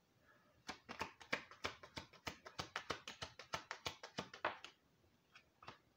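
Gypsy Witch fortune-telling cards being shuffled by hand: a quick run of soft taps, about six a second, that stops a little after halfway, followed by a few scattered taps.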